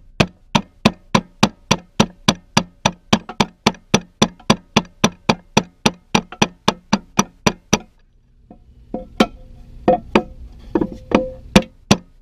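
Hammer tapping the bent steel reservoir of a GM power steering pump to straighten it: a steady run of quick blows, about three or four a second. About eight seconds in they stop briefly, then come back as a few slower, uneven taps.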